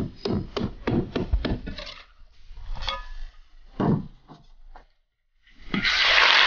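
Cleaver chopping raw chicken on a thick wooden chopping block, quick chops about four a second, then a few lighter scattered knocks. About five and a half seconds in, chicken pieces tipped into hot oil in an iron wok set off a loud sizzle.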